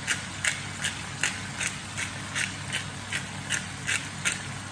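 Onion and prawn pieces frying in a pan, with short hissing pulses about two or three times a second over a steady low hum.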